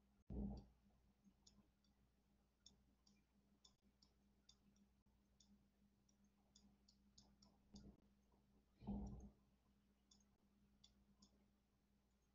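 Near silence with faint, irregular light clicks, several a second at times, and a few short soft low thumps: about half a second in, near eight seconds and about nine seconds in.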